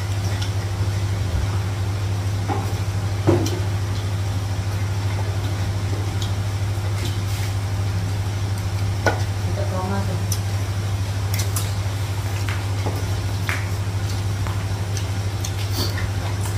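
Plates, cups and serving spoons clinking and tapping now and then as people eat, over a steady low hum; the loudest knock comes about three seconds in, another about nine seconds in.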